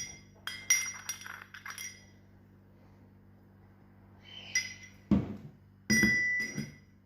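Kitchen utensils clinking: a quick run of sharp, briefly ringing clinks in the first two seconds, then more about four and a half seconds in, with a dull knock and a louder ringing clink near the end.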